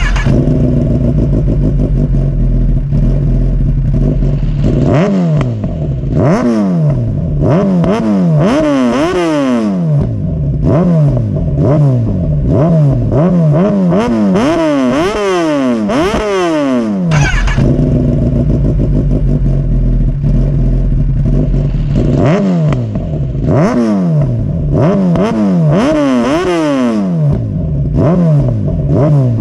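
Kawasaki Ninja ZX-10R's inline-four engine running through an aftermarket slip-on exhaust. It idles steadily, then is blipped again and again, the revs rising sharply and falling back about once a second. Around the middle it settles back to idle, then a second run of throttle blips follows.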